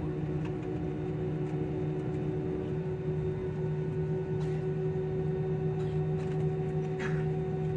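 Steady engine and cabin hum inside a jet airliner taxiing at low power after landing: a few constant tones over an even rush of noise. One of the tones drops out about three seconds in.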